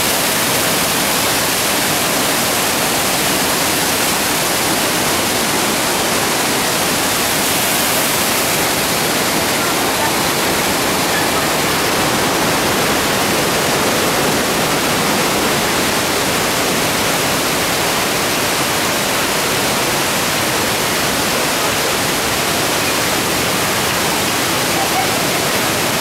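Düden Waterfall's water pouring down: a loud, steady rush of noise with no let-up.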